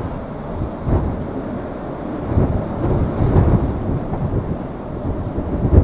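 Storm wind buffeting the microphone in gusts as a low rumbling roar, over the rush of storm-surge waves washing across a flooded road.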